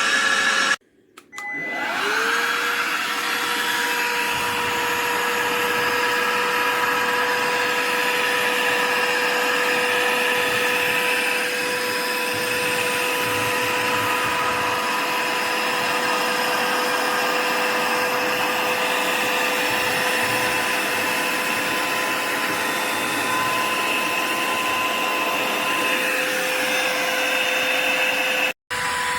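Bosch UniversalVac 18 cordless handheld vacuum running. It cuts out for a moment about a second in, then spins back up with a rising whine and runs steadily with a constant motor whine.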